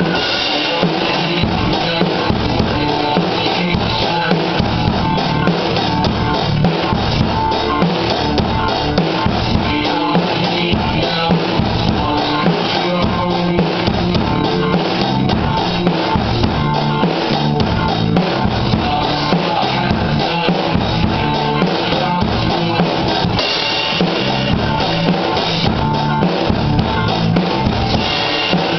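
Drum kit played with sticks in a steady, regular rock beat, along with a recorded rock song playing at the same time.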